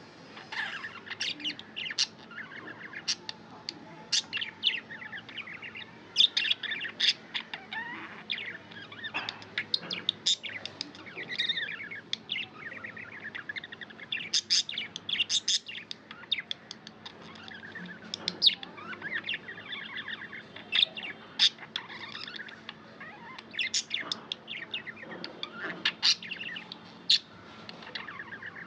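Pet budgerigars chirping: a busy run of short, high chirps and squeaky notes, one after another with only brief pauses.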